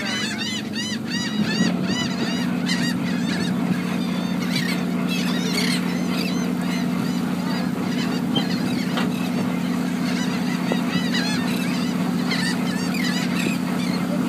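A flock of gulls calling over a shrimp boat's trawl net, with a quick run of repeated arched calls near the start and scattered calls after. Underneath, the boat's engine runs steadily.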